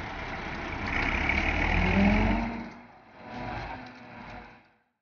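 Swaraj 8100 combine harvester's diesel engine running. It grows louder about a second in, then fades, swells briefly again and cuts off to silence near the end.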